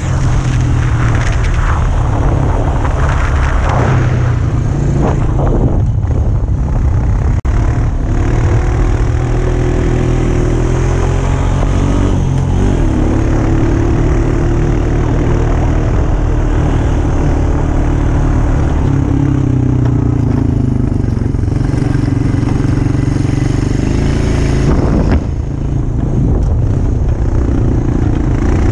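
ATV engine running under way, its pitch rising and falling with the throttle, over a steady low rumble.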